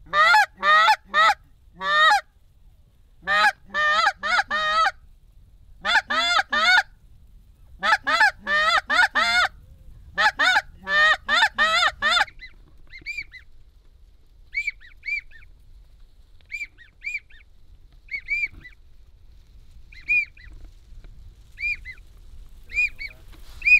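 Goose honks in quick runs of three or four loud calls for about twelve seconds, then softer, high, short whistled notes coming in pairs for the rest.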